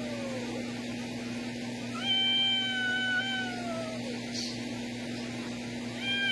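Domestic cat yowling in long drawn-out meows. One call trails off at the start, a second lasts about two seconds before sliding down in pitch, and a third begins near the end.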